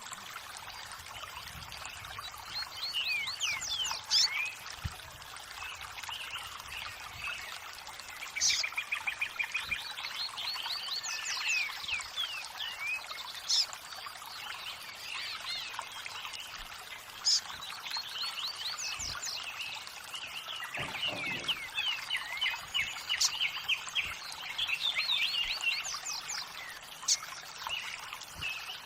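Running water trickling steadily, with several songbirds chirping and trilling over it in quick, repeated phrases.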